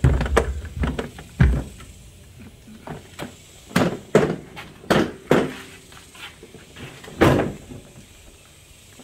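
Folded cordless lawn mower being wheeled over a doorway and handled into its upright storage position: a string of knocks and clunks from its plastic deck, wheels and handle, with heavy thumps at the start and about a second and a half in, and sharper knocks in the middle and near the end.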